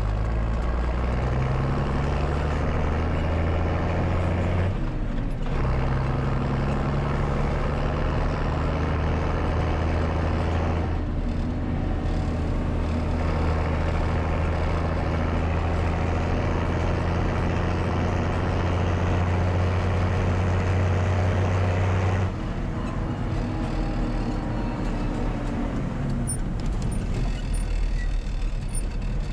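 Mercedes-Benz MB Trac 1600 tractor's diesel engine running under power as it drives, heard from inside the cab with the roof hatch open. The engine note dips briefly about five seconds in, and about 22 seconds in the throttle comes off and the engine note falls away.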